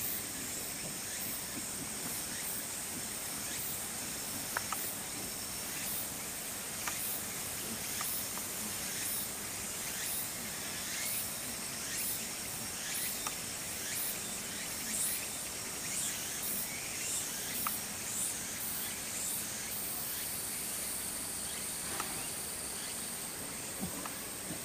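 Outdoor insect chorus: a steady high-pitched trill with a chirp repeating every half second or so through the middle, and a few faint clicks.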